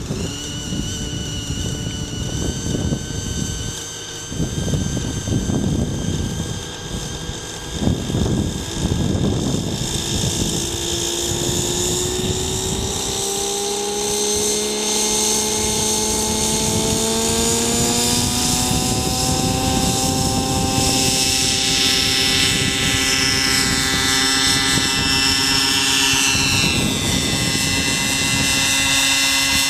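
Align T-Rex 600 nitro RC helicopter's glow engine and rotors spooling up: after several seconds of uneven rushing, a whine rises steadily in pitch over about ten seconds, then holds steady as the helicopter lifts off and climbs.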